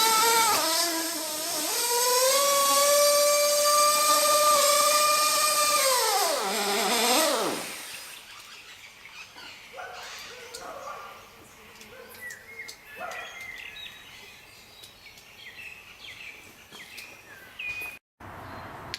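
RB K10 nitro engine of an Ofna Dominator RC car revving high and holding at high revs. About seven seconds in, its pitch and level fall away steeply. After that there is a quiet outdoor background with faint bird chirps.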